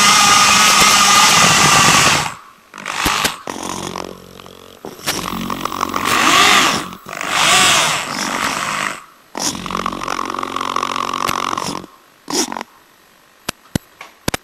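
RC rover's electric drive motors and gearboxes running with a whine, then starting and stopping in a series of short bursts, some rising and falling in pitch. A few sharp clicks near the end.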